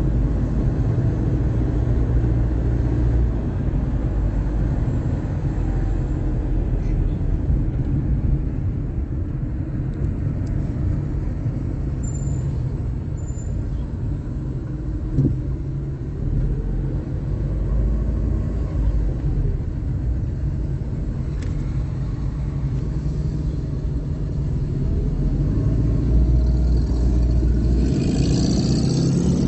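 Steady low rumble of a car driving on the road, with a brief hiss near the end.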